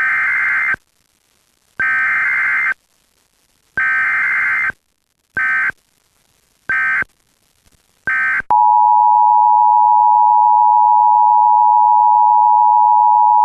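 Emergency Alert System header: six bursts of warbling data tones, three long and then three shorter. About eight and a half seconds in, a steady single-pitch alert tone starts and holds without a break, the attention signal that comes before a tornado warning is read.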